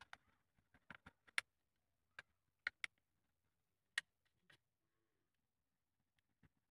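Sharp, short clicks and snips from scissors cutting and hands handling a flattened sheet of thin aluminium drink can, about ten in the first five seconds, with one or two more near the end.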